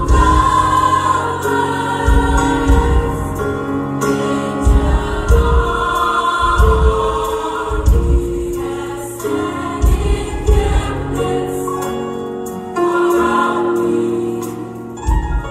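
High school choir singing a gospel song in full harmony, with deep bass notes pulsing underneath.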